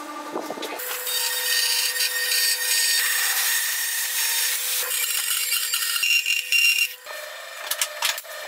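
Band saw cutting a piece of clear acrylic sheet: a steady machine hum with a bright, high whine and hiss from the blade. It starts about a second in and stops about seven seconds in, with light scratching and handling of the acrylic at the start and end.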